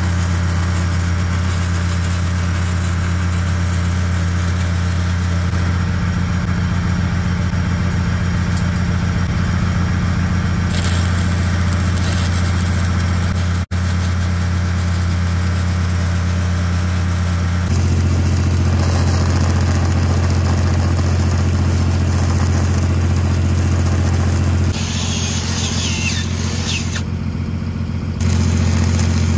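An engine-driven welding machine running steadily with a deep hum, under the crackle and hiss of a stick-welding arc laying a 6010 root pass.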